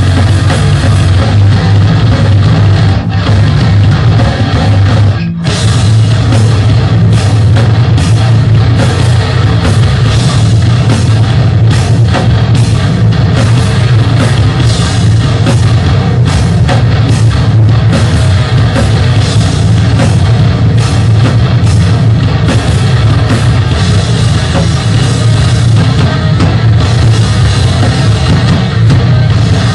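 Death/grind metal band playing live: heavily distorted electric guitars, bass guitar and a pounding drum kit, very loud and dense, with a split-second break in the music about five seconds in.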